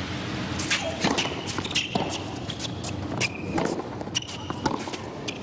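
Scattered sharp knocks and clicks with a few short high squeaks over a hushed arena: a tennis ball bounced on a hard court and shoes squeaking as a player gets ready to serve.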